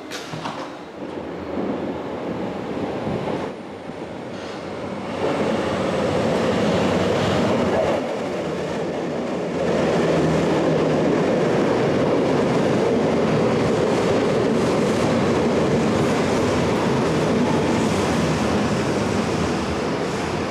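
Munich U-Bahn train running along an underground station platform: a steady rumble of wheels and traction gear that grows louder from about five seconds in and again about ten seconds in.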